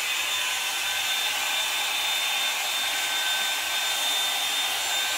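Hot-air brush hair dryer (a combined dryer and round brush) running steadily while drying hair: an even rush of blown air with a thin, steady high motor whine.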